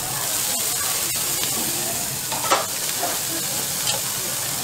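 Flat noodles and onions sizzling steadily in oil on a hot flat-top griddle. A brief knock comes about two and a half seconds in, with a few fainter ones later.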